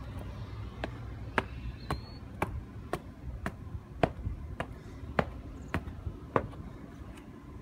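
Footsteps on concrete stadium stands, about two sharp steps a second in an even walking rhythm, stopping a little after six seconds in, over a steady low outdoor rumble.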